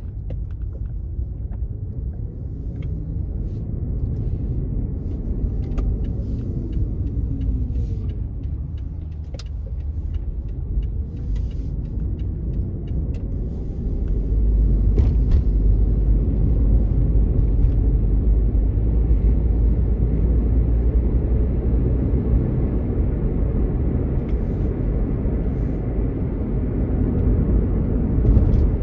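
Car driving along a country road: steady low engine and tyre rumble with road noise. About halfway through it gets louder and fuller as the car picks up speed on the open road.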